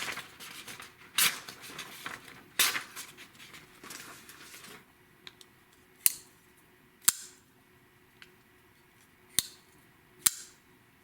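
Kubey KU176 folding knife's D2 blade slicing through material in a cut test: crackling cutting strokes, the strongest at the start and about one and two and a half seconds in. After about five seconds come four sharp, separate clicks.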